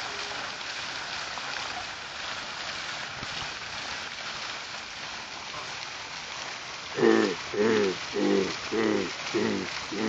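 Canada goose calling: a run of six short honks, evenly spaced a little over half a second apart, starting about seven seconds in, over a steady hiss.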